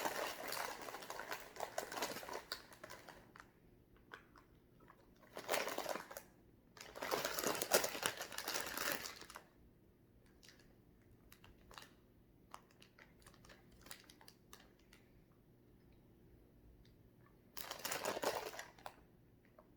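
Candy packet crinkling in several bursts as it is struggled open, with faint small clicks in the quieter stretches between.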